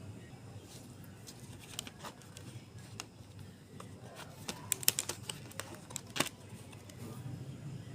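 Light, scattered clicks and taps of a clay package being handled for unboxing, with a quick flurry of clicks around the middle and one sharper tap about six seconds in.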